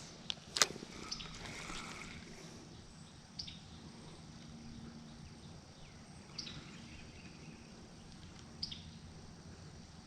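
Steady background rush of flowing water with a bird repeating a short, high call every two to three seconds. There is a sharp click just after the start.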